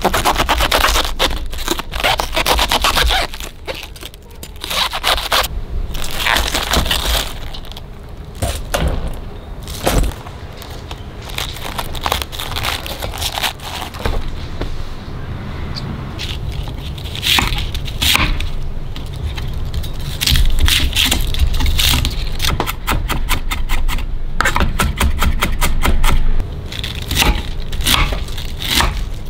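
A knife cutting and scraping out the inside of a raw cabbage head, the crisp leaves crunching and tearing in irregular strokes. Near the end, rapid steady knife chopping of cabbage on a wooden cutting board, several cuts a second.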